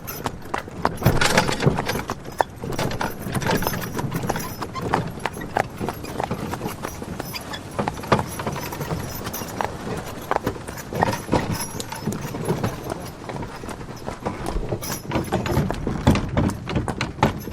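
Horse-drawn wagon at a fast ride: hooves clip-clopping over the continuous wooden and metal rattle of the wagon.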